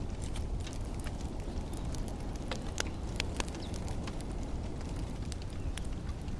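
Campfire crackling: irregular sharp snaps and pops over a steady low rumble.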